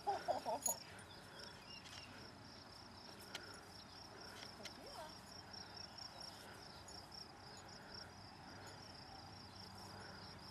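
Crickets chirring steadily in the grass, a continuous high, evenly pulsing trill.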